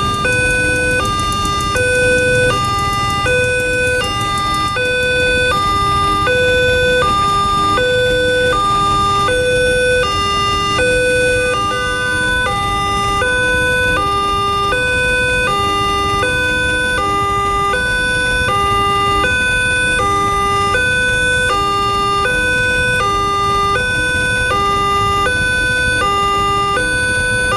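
Railway level-crossing electronic warning siren sounding steadily, alternating between a high and a low tone about every half second.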